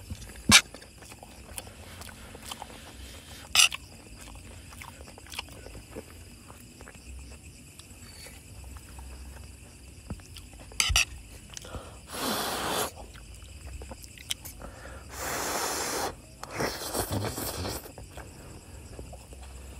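Spoons and forks clicking and scraping on plates as two people eat, with a few sharp clicks and chewing. Several brief rustling noises come in the second half.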